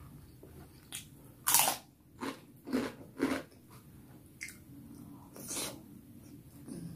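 Close-up mouth sounds of eating baso tahu (stuffed tofu and siomay dumplings in peanut sauce): a few wet bites and chews. The loudest comes about one and a half seconds in, followed by three more about half a second apart, and one more near the end.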